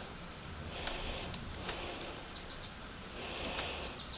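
Quiet background with faint, short high-pitched bird chirps, twice in the second half, and a few light clicks.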